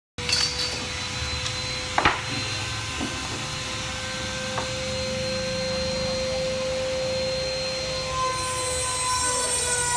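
An electric power tool's motor running with a steady whine that sags slightly in pitch near the end, with a few sharp wooden knocks, the loudest about two seconds in.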